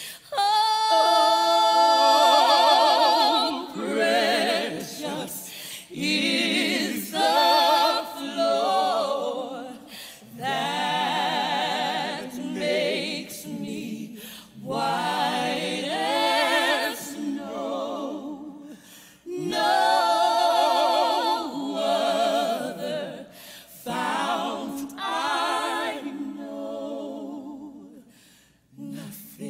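Women's voices singing unaccompanied in long, held phrases with heavy vibrato, in a gospel style, with short breaths between phrases.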